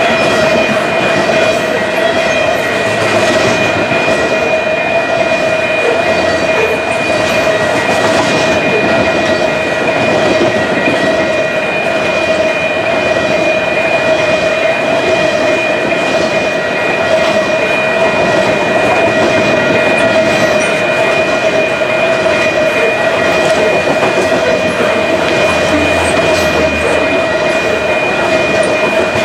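A long freight train of loaded canola cars rolling past at speed: a steady clatter of wheels on rail, with a constant ringing tone over it.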